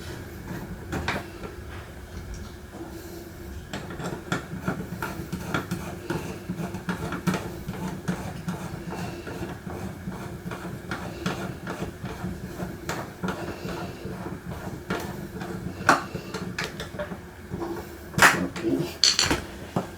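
Scattered small clicks, taps and light rattles of wires, wire connectors and hand tools being handled while wiring a dimmer switch, over a steady low hum, with a few sharper clacks near the end.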